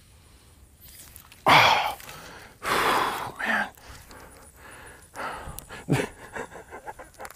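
A man breathing heavily close to the microphone: two loud exhales a second or so apart, then softer breaths and a run of quieter short sounds.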